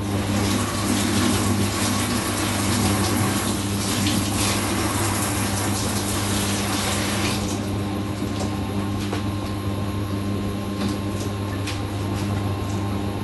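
Kitchen tap running into a sink, which stops about seven seconds in, followed by a few light clinks and knocks. A steady low hum runs underneath.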